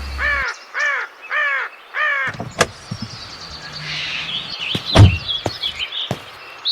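A bird cawing in a quick series, about two caws a second, for the first two seconds, followed by faint high twittering of small birds. Scattered clicks, and a single loud thump about five seconds in.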